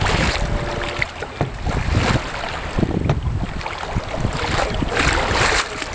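Wind buffeting the microphone over choppy water washing against a kayak's hull, with louder splashing surges about every two to three seconds.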